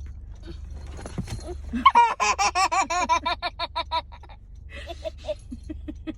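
An animal's warbling call: a quick run of about eight rising-and-falling pitched notes a second for about two seconds, then a few softer chirps.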